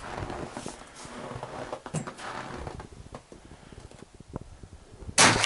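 A single shot from a Savage .22 LR bolt-action rifle about five seconds in: a sharp crack with a long echoing decay. Before it there is only quiet rustling and a click or two.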